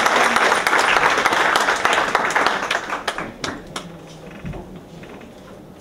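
Audience applauding, strong at first and dying away about three seconds in, with a few last scattered claps after.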